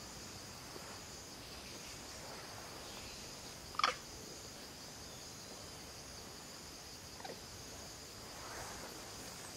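Faint, steady high drone of forest insects, with one short, sharp animal call falling in pitch about four seconds in and a fainter one later.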